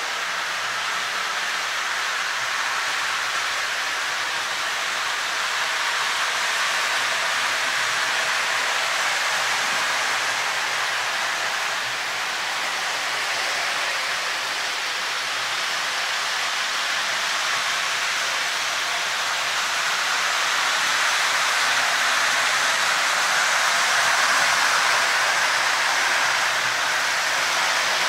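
Model electric trains running around the track loops of a layout: a steady whirring rumble of wheels and motors, getting somewhat louder about twenty seconds in.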